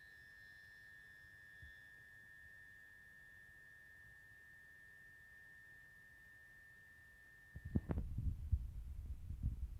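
Oil-filled heater giving off a steady, high-pitched whine, one even tone that cuts off suddenly about eight seconds in. Irregular low knocks and rumbling follow and are the loudest part.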